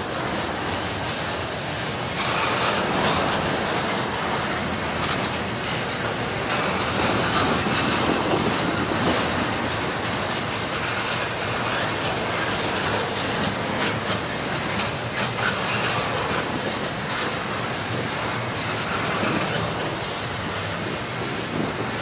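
CSX intermodal freight train rolling past, its cars' wheels clacking over the rail joints in a steady, continuous run of noise.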